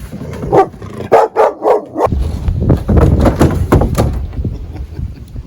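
A dog gives four short, excited yips in quick succession, then loud, continuous low rustling noise takes over.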